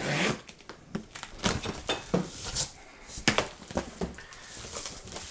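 Large cardboard shipping box being opened by hand: scattered knocks, scrapes and rustles of flaps and packing, with one sharper knock about three seconds in.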